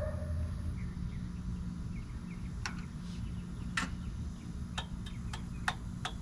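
Sharp, separate clicks and knocks, about six of them from a couple of seconds in, as hands work the controls of a Predator 459cc engine that will not start because its switch is still off. A steady low hum runs underneath.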